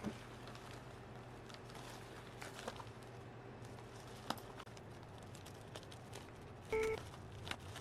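A few faint, light clicks and taps, like small items being handled, over a low steady room hum, with a short musical note near the end.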